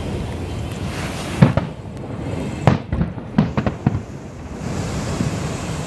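Aerial fireworks bursting: a continuous low rumble of distant booms with several sharp bangs, the loudest about a second and a half in and a cluster of others around three to four seconds in.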